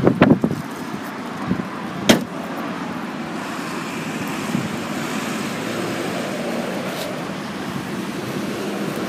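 A few knocks from handling the boot, then one sharp slam about two seconds in: the tailgate of a Volvo V60 estate being shut. After it, a steady hiss of distant traffic and wind.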